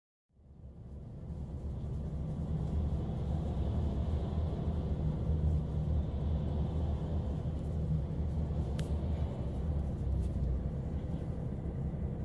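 Steady low rumble of a running vehicle, fading in from silence in the first second, with a faint tick about nine seconds in.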